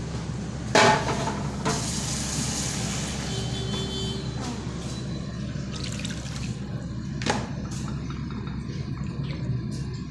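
Water running into a kitchen vessel, with a loud clatter of a utensil about a second in and a sharp knock around seven seconds.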